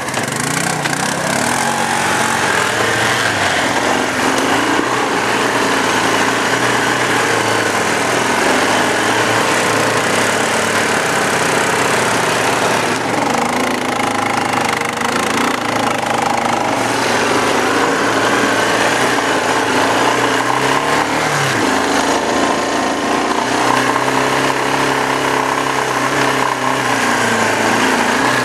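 Quad (ATV) engine running hard on a rough trail, its pitch rising and falling with the throttle. It revs up and drops back sharply about two-thirds of the way through, then holds steady.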